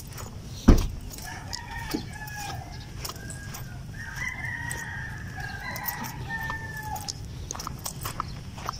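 Roosters crowing: several long, drawn-out crows, some overlapping, from about a second in until about seven seconds. A single sharp thump just before the first crow is the loudest sound, with light scattered clicks throughout.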